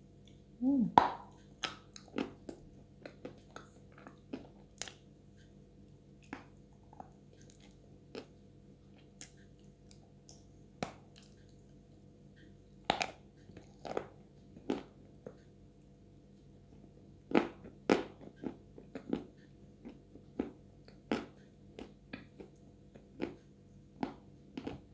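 Close-up biting and chewing of Chuy edible clay: a chunk of pressed clay dipped in clay paste, giving scattered crunches and wet mouth clicks at an irregular pace, loudest about a second in.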